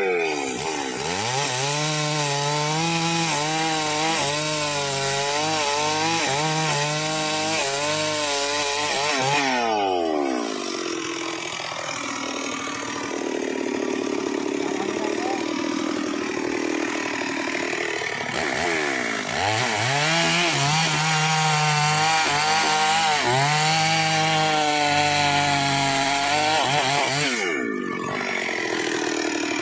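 Chainsaw running at high revs while cutting wood, its engine pitch wavering under load. It drops to a lower speed about ten seconds in, picks back up partway through, and drops again near the end. The chain is dull, which makes the cutting hard.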